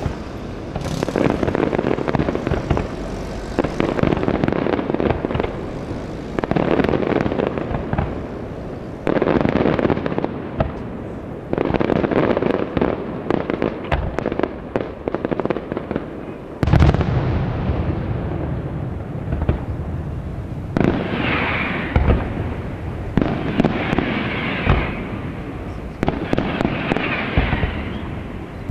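Aerial fireworks shells bursting in a display, wave after wave of booms and dense crackle every couple of seconds. The heaviest boom comes about 17 s in, and the later bursts carry a brighter crackling hiss.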